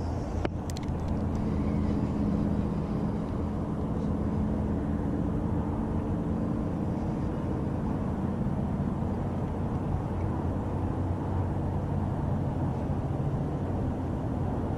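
Steady rumble of interstate highway traffic. For a few seconds early on, one vehicle's engine hum stands out above it.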